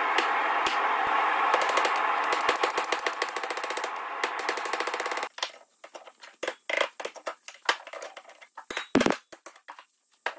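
A steady hiss with a fast crackle over it for about five seconds, which cuts off suddenly. Then scattered light metal clinks and taps, with one louder knock near the end, as a bent coil-spring steel hold-down is set into the hole of an anvil.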